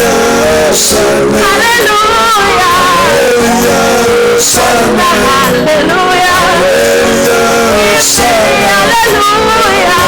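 Worship song: voices singing over instrumental accompaniment, with a bright crash about every three and a half seconds.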